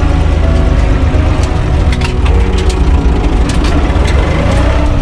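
UTB 445 tractor's four-cylinder diesel engine running steadily, heard from inside the cab. Several sharp cracks and clicks come between about one and four seconds in.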